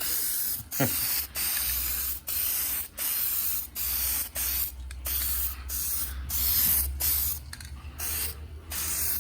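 Aerosol can of primer spraying in a quick series of short hissing bursts, about a dozen, each around half a second long.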